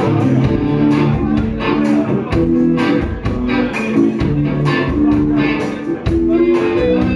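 Live Irish folk-rock band playing an instrumental tune: electric guitar and bass over a steady drum beat, with keyboard.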